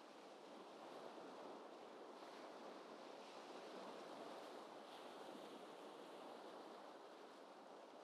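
Faint recording of gentle ocean waves: a steady, soft wash of surf with no distinct breaks.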